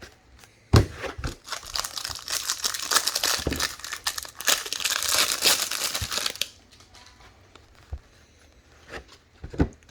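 A card pack's plastic wrapper crinkling as it is torn open and crumpled by hand, with a sharp knock just before, then a few light clicks and taps near the end as the cards are handled.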